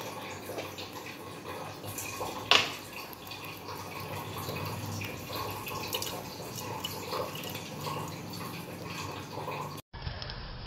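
Water pouring and splashing into a metal kadai, with one sharp knock about two and a half seconds in. Near the end the sound drops out for an instant at a cut.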